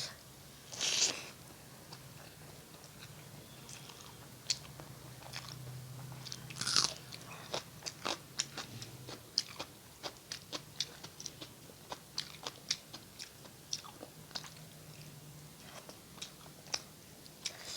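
Close-miked mouth sounds of a person eating a meal of rice and curry: steady chewing with many small wet clicks and lip smacks, and two louder crunchy bites, about a second in and near seven seconds.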